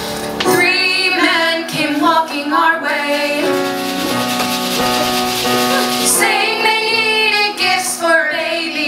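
Women's voices singing in two phrases over a sustained instrumental accompaniment, the opening of a musical-theatre song performed live.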